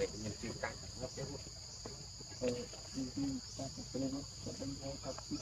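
Steady, high-pitched drone of a forest insect chorus, with indistinct voices chattering underneath in short broken snatches.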